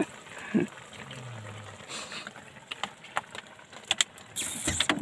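Wok of shrimp, clams and fish in broth simmering: a faint steady hiss with scattered small pops, and a brief loud rush of noise near the end.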